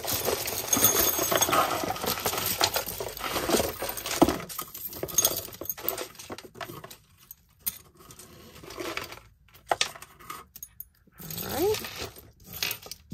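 Costume jewelry clinking and jangling as a hand rummages through a pile of metal chains, pendants, bangles and beads, busiest over the first few seconds, then scattered single clicks as pieces are picked out and set down.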